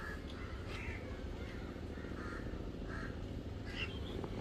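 Crows cawing: a series of short calls a little under a second apart, over a steady low background rumble.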